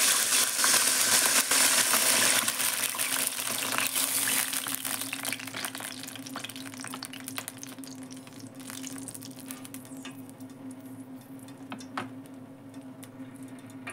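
Water poured into hot oil in a steel kadai with fried boiled eggs, the oil sizzling and spitting loudly at first. The sizzle dies away over the first several seconds to a quiet simmer. A steady low hum runs underneath throughout.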